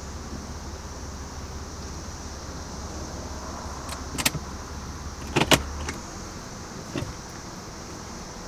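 Car heard from inside the cabin: a low steady engine hum that cuts off about six seconds in, as the engine is switched off. Short sharp clicks from the car's controls come about four seconds in, then as a quick double just before the hum stops, and once more about a second after.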